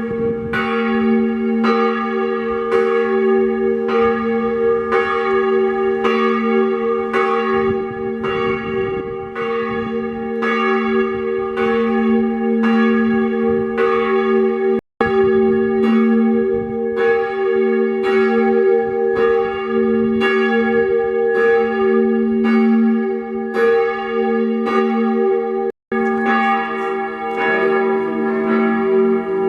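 Parish church bells ringing a full peal: several bells swinging together, strokes coming a little faster than one a second over their lingering hum tones. The ringing is broken twice by a split-second gap of silence.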